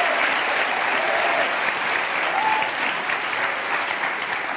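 Studio audience applauding, a dense steady clatter of many hands with a couple of short whoops, slowly easing off toward the end.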